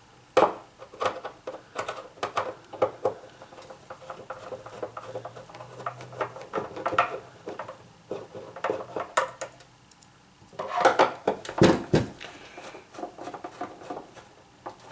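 Irregular clicks, taps and clatter of a Kaz V3100 evaporative humidifier's plastic housing being taken apart: screws being backed out and the plastic parts handled and set down, with a louder run of knocks about eleven seconds in.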